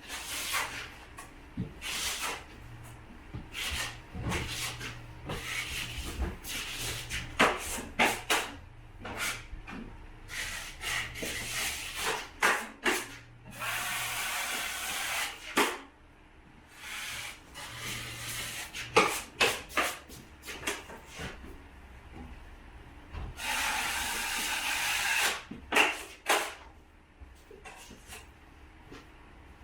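Hand drywall finishing: a taping knife scraping compound across a plasterboard joint in many short strokes, with knocks and taps between them. There are two longer rubbing strokes, about halfway through and again near the end.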